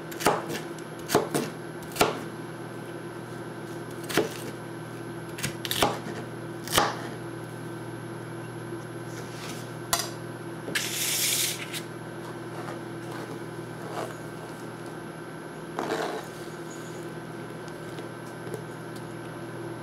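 Chef's knife chopping a sweet pepper on a plastic cutting board: scattered sharp knocks, most of them in the first seven seconds, then only a few. A short hiss a little past halfway and a steady low hum lie under it.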